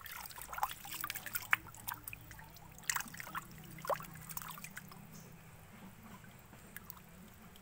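Faint, scattered wet drips and plops of water in a muddy mangrove, with a couple of clearer plops about three and four seconds in, the second one dropping in pitch.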